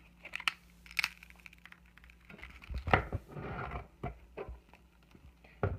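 Tempered glass screen protector being crushed with pliers: scattered small clicks and cracks of breaking glass, with the loudest crack about three seconds in and another sharp one near the end.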